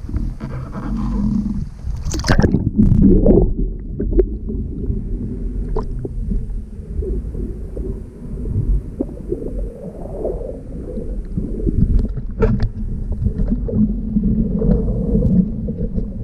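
Wind rumbling over the microphone aboard a sailing boat under way, with water noise and a few sharp knocks.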